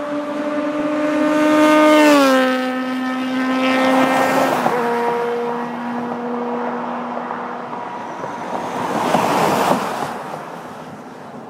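A road vehicle passes at speed with a loud, high engine note that drops in pitch as it goes by about two seconds in, then fades as it drives off. Near the end a motorhome towing a boat passes close, bringing a rush of tyre and wind noise.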